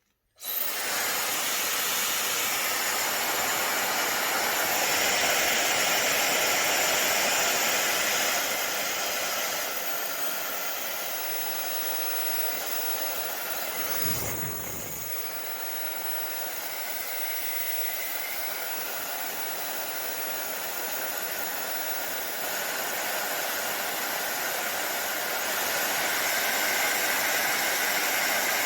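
YAPOY 110,000 RPM ionic hair dryer switched on abruptly and running with a steady rushing hiss of air and a faint motor whine. Its level drops after about eight seconds and rises again later, with a brief low rumble about halfway.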